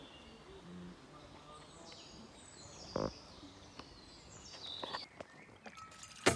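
A songbird singing a short descending phrase, repeated about every three seconds, over faint outdoor background noise. A single knock comes about three seconds in and a sharp click near the end.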